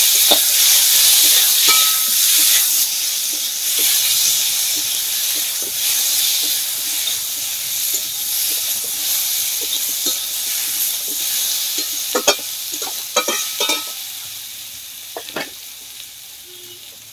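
Onion paste, black cumin and potato and green-banana pieces sizzling in mustard oil in a metal kadai, stirred with a metal spatula that scrapes and clicks against the pan. The sizzle slowly dies down toward the end, and a cluster of sharper spatula clicks comes about three-quarters of the way through.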